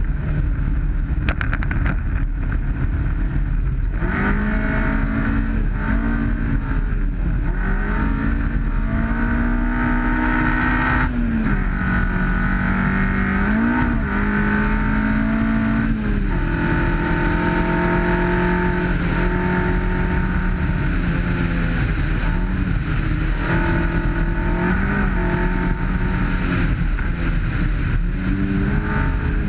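Rally-prepared 1991 Honda CRX's twin-cam ZC four-cylinder engine running hard at speed on a gravel stage, over a steady roar of tyres on gravel. For the first few seconds mostly the road roar is heard. Then, about four seconds in, the engine note comes through, its pitch rising and dipping repeatedly.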